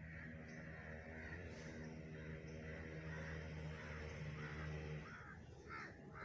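Crows cawing in short repeated calls, most clearly near the end, over a faint steady low drone that cuts off about five seconds in.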